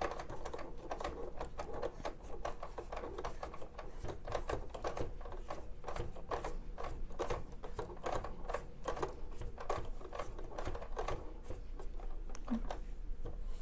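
Wet wipe rubbed briskly over the rubber roller and shaft of a Silhouette Cameo 4 cutting machine, giving rapid, irregular clicking and scraping.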